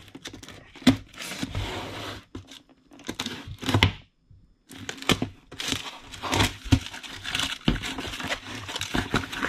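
Plastic shrink wrap on a cardboard box being slit with a folding knife and torn away, crinkling and tearing with sharp clicks. After a short pause about four seconds in, cardboard flaps and packaging rustle as the box is opened.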